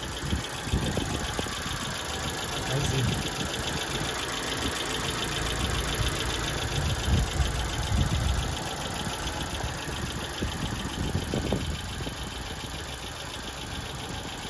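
Four-cylinder petrol engine of a TMT K01 light truck idling, heard close up through the open engine hatch under the cab seat, with a fast, even ticking over its steady running.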